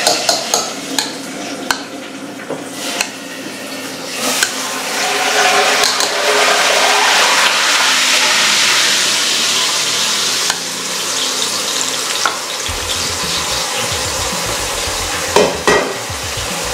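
A hot pan sizzling, with utensils clinking and scraping in it now and then; a low rumble joins about three-quarters of the way through.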